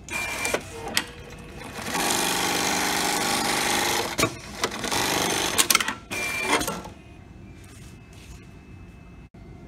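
Programmable pattern sewing machine stitching a label onto a fabric part: a few sharp clicks from the clamp frame, then the machine running fast and steady for about four seconds with a brief break in the middle, then more clicks as it stops and the frame lifts.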